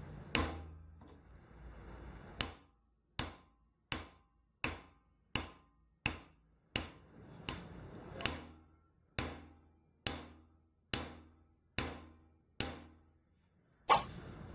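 A hammer striking metal in a steady series of about sixteen blows. After the first blow there is a pause of about two seconds, then the blows come roughly one every three-quarters of a second, each ringing briefly.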